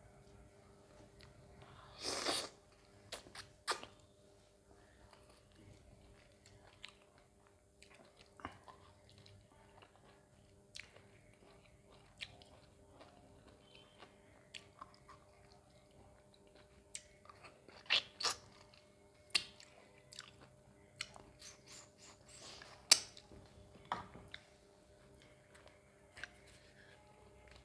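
Close-miked eating of mutton curry and roti: scattered wet mouth clicks and smacks from chewing and biting, with a louder burst about two seconds in and a busier run of clicks in the second half.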